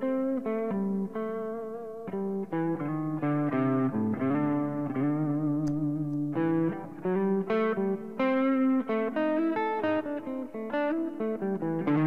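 Unaccompanied electric guitar playing an improvised blues lead: quick single-note lines with held notes that waver in pitch, over no backing track.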